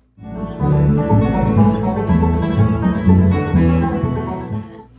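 Short instrumental music cue that starts a moment in and stops just before the end.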